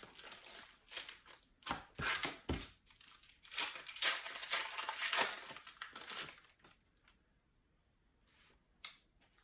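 Plastic wrapper of a Panini Prizm basketball card pack being torn open and crinkled, in a run of rustling bursts that stops about six and a half seconds in.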